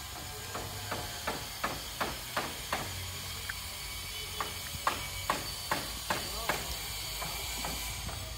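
Hammer blows on a roof's wooden battens, sharp knocks at about three a second in two runs with a short break between.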